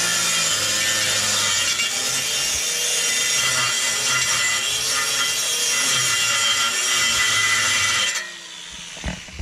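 Corded power tool running steadily as it cuts into the metal rib of an RV entry step, then stopping abruptly about eight seconds in.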